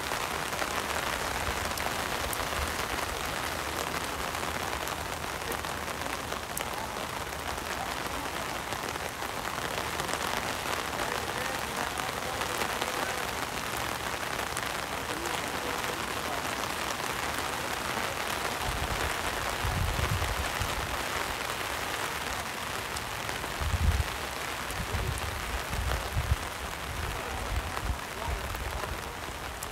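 Steady rain falling, a continuous even hiss. From about two-thirds of the way through, low rumbling bumps come and go on the microphone.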